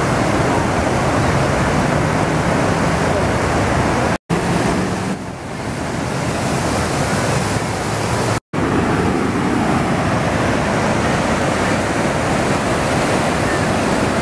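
White-water river rapids rushing, a loud, steady wash of water mixed with wind buffeting the microphone. It breaks off twice for a split second, about four and eight and a half seconds in.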